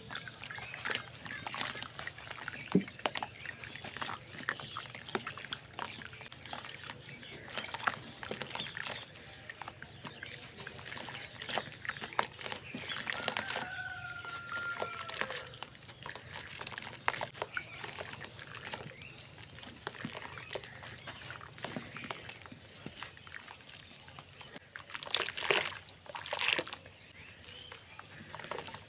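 Dusty clumps of dried cement and dirt crumbling and crushing between fingers: a dense run of small crackles and crunches, with a heavier crumbling burst about 25 seconds in. A rooster crows in the background about 13 seconds in.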